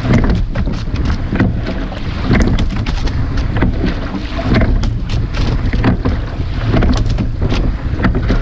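Rowing shell under way: oars working through the water in a steady stroke, a surge of splashing and knocks coming about every two seconds, under heavy wind rumble on the microphone.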